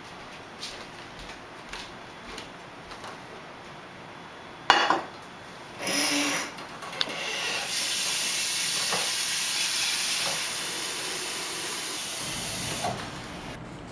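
A metal stockpot clanks against the sink, then the kitchen faucet is turned on and water runs steadily into the pot to fill it for boiling pasta. The water shuts off near the end.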